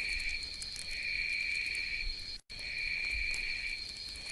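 Night insect chorus: a steady high trill with a lower trill that swells and fades about once a second. The track cuts out briefly about two and a half seconds in.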